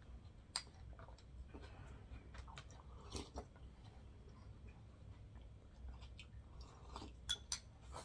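Faint chewing and mouth sounds of someone eating sushi, with a few short soft clicks, several of them close together near the end.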